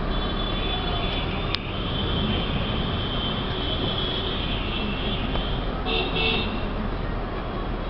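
Traffic noise from inside a vehicle moving along a city street: a continuous rumble of engines and road noise. A high steady tone lasts several seconds, and two short high-pitched blasts come about six seconds in.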